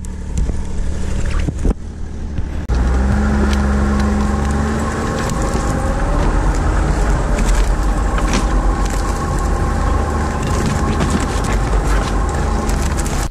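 Ski-Doo Skandic 900 ACE snowmobile's three-cylinder four-stroke engine running as the machine drives through brush, towing a toboggan. Scattered knocks and rattles come at first, then the engine gets suddenly louder about three seconds in and stays steady.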